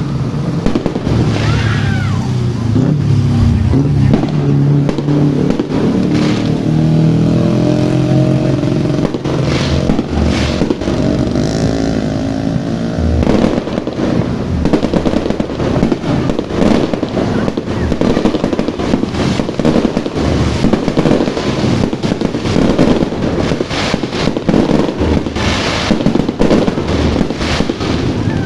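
A box of fireworks (a multi-shot cake) firing: a run of bangs and crackles that becomes denser and more continuous in the second half.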